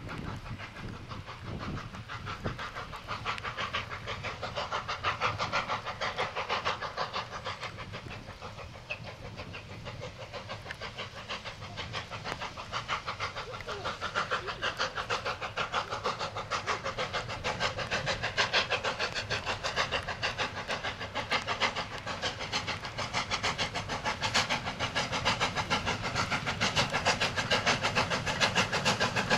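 LNER A4 Pacific steam locomotive Bittern, a three-cylinder 4-6-2, exhausting in a rapid, even run of beats as it hauls its passenger coaches, growing louder over the second half as it draws near.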